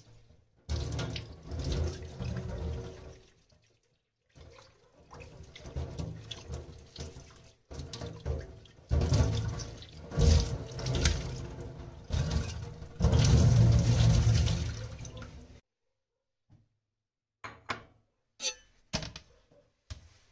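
Tap water running into a stainless steel sink and splashing as green vegetables are rinsed under the stream, the sound breaking and swelling as the greens move through it, then stopping. A few light knocks follow near the end.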